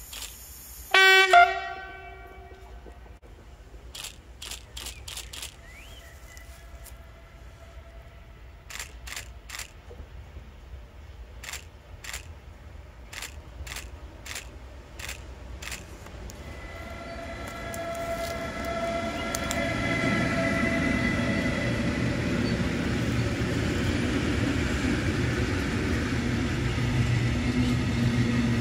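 A freight train's horn sounds one short blast about a second in, the loudest sound here. Scattered sharp clicks follow. From about halfway the train, an E6ACTa Dragon electric locomotive with an SM42 diesel and open coal wagons, draws near and passes: wheels rumbling on the rails with a steady whine, growing louder and then holding.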